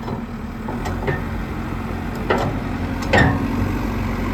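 JCB 3CX backhoe loader's diesel engine idling steadily, with a few short sharp clicks or knocks over it, the loudest about three seconds in.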